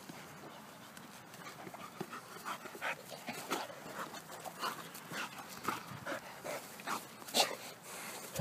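American pit bull terrier panting close by, about three breaths a second, getting louder from about two seconds in.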